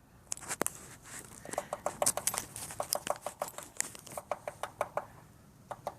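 Red-shafted northern flicker pecking at a building's non-wooden siding: many sharp, irregular taps and knocks, with a short cluster near the end.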